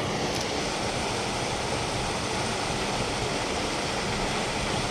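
Steady rush of creek water running over rocks, an even, unbroken hiss.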